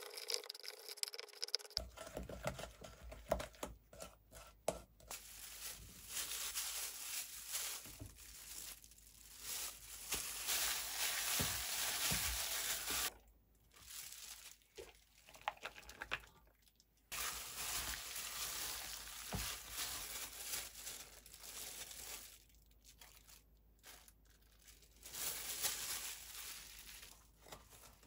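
Food being mixed by hand in a stainless steel bowl: a spoon stirring red pepper seasoning against the steel, then a plastic-gloved hand tossing sliced onions and green onions in the sauce, the glove crinkling, in several short clips. Near the end, plastic cling wrap is pulled from its box.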